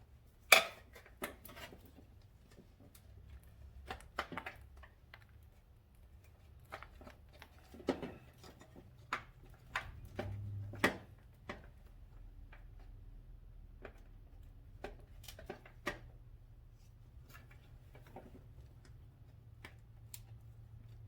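Hands working at motorcycle wiring connectors and hardware: scattered small clicks, snaps and light knocks, the loudest about half a second in.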